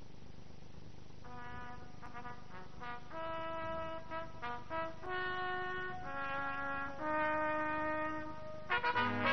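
Background music: a brass instrument plays a slow melody of held notes, coming in about a second in.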